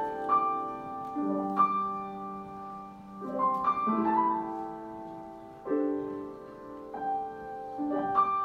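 Piano playing a slow song introduction: chords struck every second or two and left to ring and fade.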